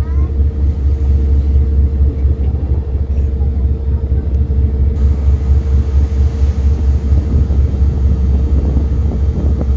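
Ferry's engines giving a steady low rumble on the open deck, with a constant faint hum above it and wind on the microphone.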